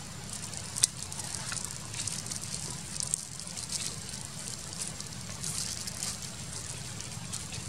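Outdoor forest ambience: a steady high hiss that flickers in quick pulses, over a low steady rumble, with a few sharp clicks, the loudest just under a second in.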